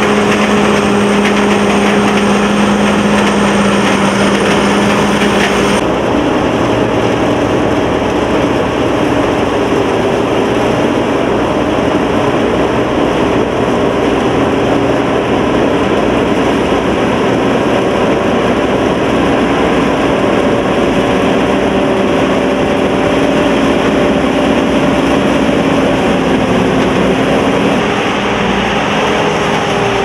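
SAKPATTANA KM-AMT No.9.9 corn combine harvester running steadily while harvesting standing corn: its engine and machinery make a loud, even drone. About six seconds in the sound changes abruptly to a duller drone, without the high hiss.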